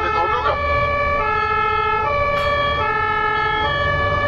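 German ambulance two-tone siren sounding, alternating between a high and a low note, each held a little under a second, over the low rumble of traffic.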